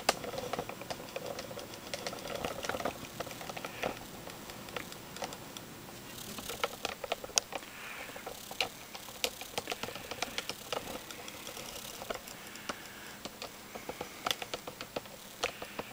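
Irregular light clicks and taps, several a second and uneven, over a low steady hiss.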